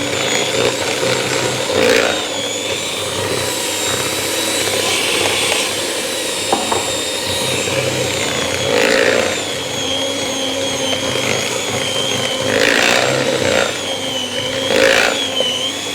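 Electric mixer running steadily with a wavering motor whine as it beats flour into cookie dough, swelling louder a few times and stopping right at the end.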